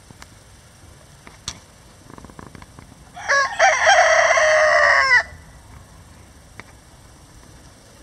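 Rhode Island Red rooster crowing once, about three seconds in. The crow lasts about two seconds: a short opening note, then a long held note that drops in pitch as it ends.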